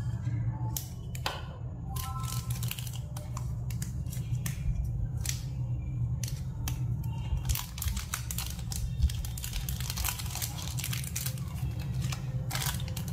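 Small clear zip-lock plastic bag crinkling and rustling as fingers work it open, with irregular light plastic clicks that grow denser in the second half. A steady low hum runs underneath.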